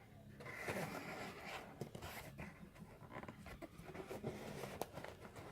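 Faint scratching, rustling and small clicks of hands handling and opening a cardboard box of wax card packs.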